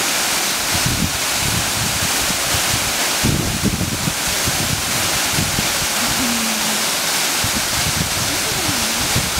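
Waterfall rushing steadily, with gusts of wind rumbling on the microphone.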